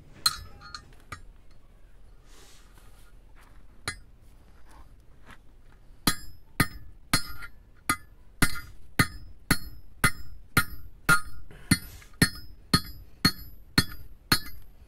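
Hammer striking a thin steel rod laid on a flat steel plate, each blow ringing metallically. A few scattered taps come first, then from about six seconds in a steady run of blows, about two a second, bending the rod.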